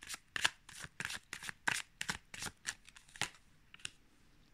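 A tarot deck shuffled by hand: a quick, irregular run of crisp papery card strokes, three or four a second, that stops a little after three seconds in.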